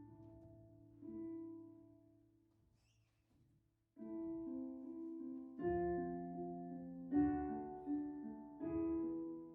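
Slow, quiet piano music. A chord fades away, a near-silent pause follows, and from about four seconds in held chords are struck again roughly every second and a half.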